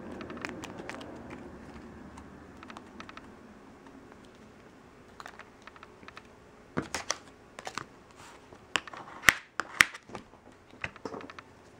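Sparse light clicks and taps of nail-stamping tools on a metal stamping plate as polish is laid on, scraped and picked up. The clicks come thicker in the second half, and two sharp ones near the end are the loudest.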